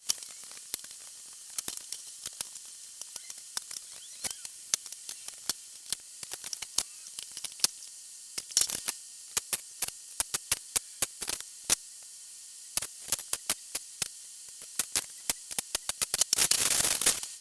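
Sharp, irregular metallic clicks and ticks, several a second, from BMX wheel spokes and nipples being unscrewed and handled as the wheel is taken apart, over a steady hiss. A denser rush of rattling noise comes near the end.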